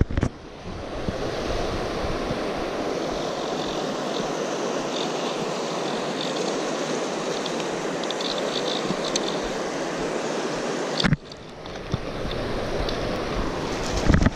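Steady rush of river water running over a riffle, with some wind on the microphone. The sound drops off suddenly about eleven seconds in, then builds back.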